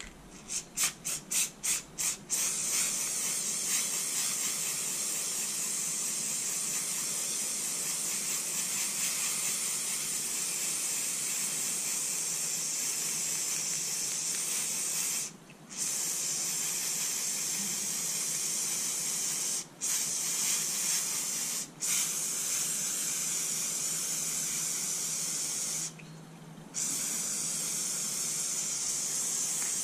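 Pressurised spray hissing: about seven quick short bursts, then a long steady spray that stops briefly four times.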